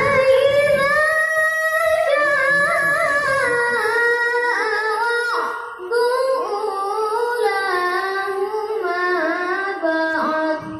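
A young qari reciting the Qur'an in melodic tilawah style over a loudspeaker: long held notes with winding ornaments, one short breath about six seconds in and another near the end.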